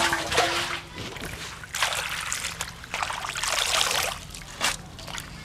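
Water splashing and trickling back into a metal bowl as handfuls of leafy greens are lifted out during washing, in several short bursts.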